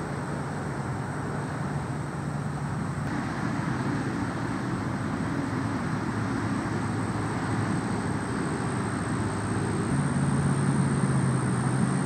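Steady low rumble of distant engine traffic, with an engine hum that fades a few seconds in and returns louder near the end.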